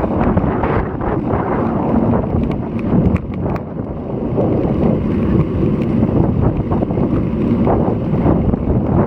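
Strong gusty wind from an approaching typhoon buffeting an action camera's microphone during a bike ride: a loud rumbling rush that rises and falls.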